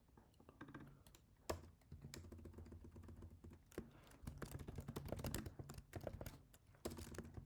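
Typing on a computer keyboard: a few scattered keystrokes, then a quick run of them from about four seconds in.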